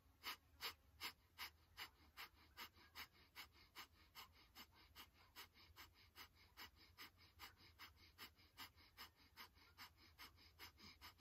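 Breath of fire (kapalabhati-style yogic breathing): rapid, forceful exhales through the nose driven by pumping the navel, short sharp puffs of air in a steady rhythm of about two and a half a second.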